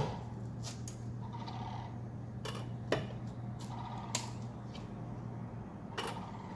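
Hand wrench and lug nuts clicking and clinking as the nuts are worked loose on a car wheel: a few sharp metal knocks spread through, with short runs of ticking. A low steady hum underneath fades out about two-thirds of the way through.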